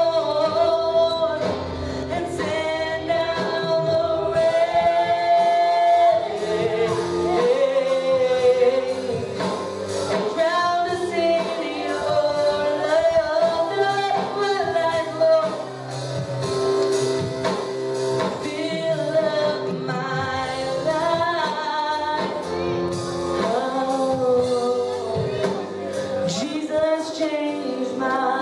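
Live worship music: male and female singers lead congregational singing over instrumental accompaniment, with long held sung notes.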